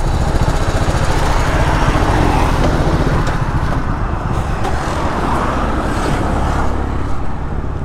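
Motorcycle engine running with steady wind and road rush on the helmet-mounted microphone as the bike rides along and slows onto the dirt shoulder.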